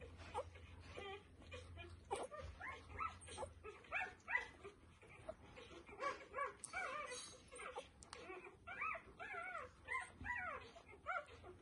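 Day-old puppy making short squeaks and whimpers while suckling from a feeding bottle. The little rising-and-falling cries come in quick runs from a few seconds in.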